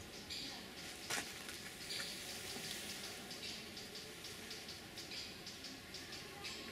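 Wooden beehive frame scraping and knocking against the hive box and a metal hive tool as the frame is lowered back in and pressed into place. The sound is a run of scratchy rustles and small clicks, with one sharp click about a second in.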